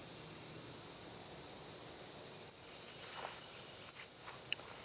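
Crickets trilling: one steady, high-pitched, unbroken drone, with a couple of faint brief ticks.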